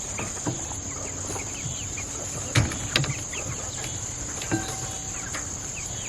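A steady high insect drone, with scattered short bird chirps and a few sharp knocks, the loudest about two and a half seconds in.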